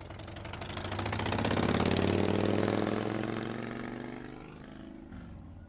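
Harley-Davidson Ultra Classic motorcycle's V-twin engine running through its exhaust pipes, a low rumble that swells louder over the first two seconds and then eases back down.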